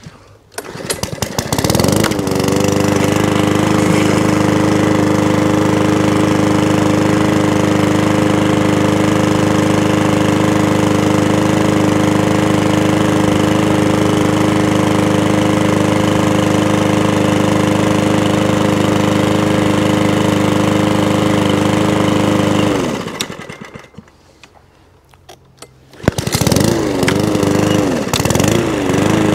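Mountfield 414 lawn mower's four-stroke petrol engine, primed and pull-started. It catches at once and runs at a steady, even speed for about twenty seconds, then winds down and stops. After a pause of a few seconds it restarts, its speed rising and falling.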